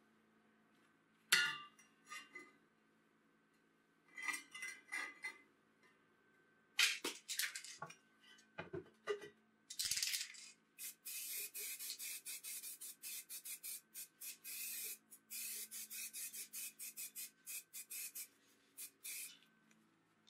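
Steel plates and parts clank and clink as they are handled and fitted together, with a loud ringing clang about a second in. In the second half, aerosol spray paint hisses in many short sprays, about four a second.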